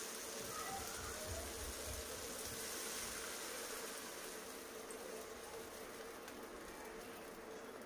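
Chopped vegetables sizzling in hot oil in a non-stick frying pan; about four seconds in, water is poured in from a steel tumbler and the sizzle dies down to a softer simmer.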